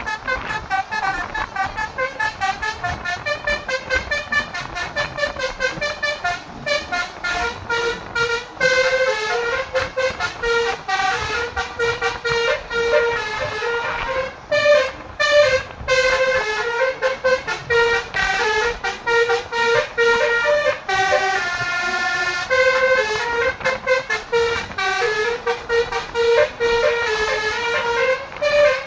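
Basuri multi-tone telolet horn playing a melody through roof-mounted horn trumpets: a rapid string of short, stuttering notes, with some longer held notes past the middle.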